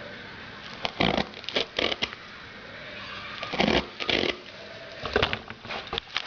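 Tyre-repair tools being forced in and out of a tubeless tyre's puncture, giving short bursts of rubber squeaking and scraping, about seven in irregular groups.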